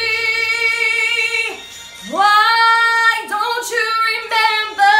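A woman singing solo without accompaniment, in held vowels with no clear words. A long held note breaks off about a second and a half in. After a short pause, she slides up into another held phrase with wavering pitch.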